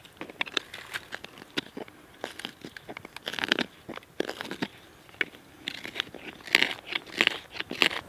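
Carving knife shaving oak as a meat fork is whittled: irregular short scraping cuts, loudest in a cluster about three and a half seconds in and again over the last two seconds.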